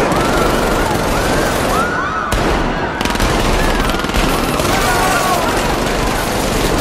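Rapid automatic gunfire, with many people screaming over it.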